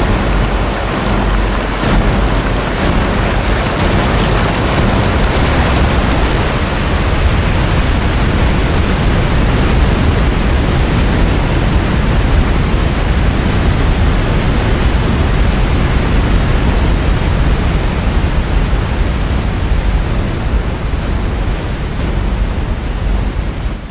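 Loud, steady rushing of a large waterfall, heavy water pouring and crashing into spray.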